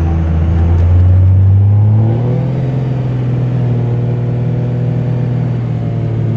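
Old Dodge diesel pickup's engine heard from inside the cab while driving: a loud, steady low drone that climbs in pitch about two seconds in and then holds. A faint high whistle rises along with it.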